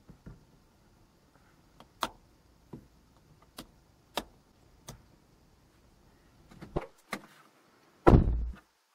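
Sharp plastic clicks and taps as the lens cover of a Suzuki Jimny Sierra's overhead interior lamp is handled and snapped into place, one every half second to a second, with a quick cluster near the end. Just after that comes the loudest sound, a single heavy thud.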